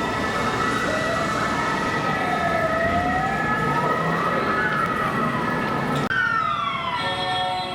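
Ambulance siren in a slow wail, rising and falling, over steady high tones. About six seconds in the sound changes abruptly to a siren sweeping down. Near the end an air horn comes in, a chord of several steady tones.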